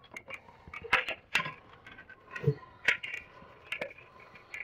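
Irregular sharp clicks and knocks of a metal-slatted window blind's headrail being handled and fitted into its mounting brackets, about half a dozen strokes over a few seconds.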